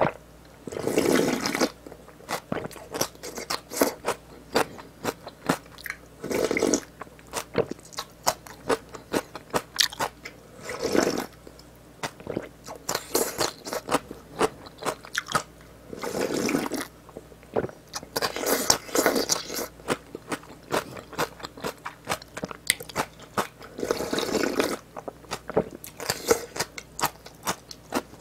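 Close-miked chewing and crunching of spicy braised pork backbone with bean sprouts and chilies: a dense run of wet mouth clicks and crunches, with a louder, longer noisy burst of about a second every few seconds.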